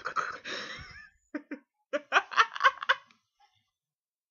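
A person making weird vocal noises: a buzzy, rapidly pulsing throat sound that trails off about a second in, then a few short, choppy bursts of giggly laughter.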